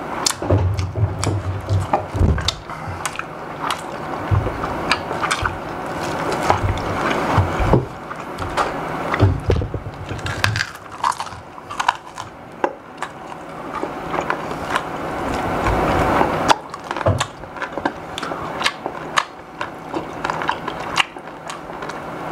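Close-up chewing and crunching of crispy-skinned air-fried chicken eaten by hand: irregular crackles and clicks with soft mouth sounds.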